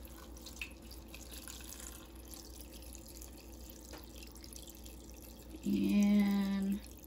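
Water pouring in a thin steady trickle from a glass mason jar onto vegetable scraps in an Instant Pot's stainless inner pot, filling it with water for broth. About six seconds in, a short steady hum lasts about a second.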